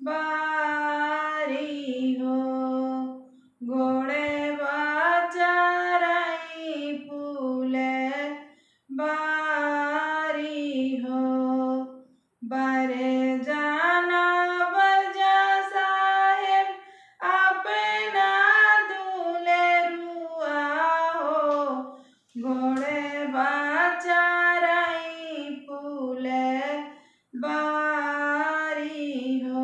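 A woman singing a Bagheli folk wedding song (vivah geet) solo and unaccompanied, in sung phrases of a few seconds with short breaks for breath between them.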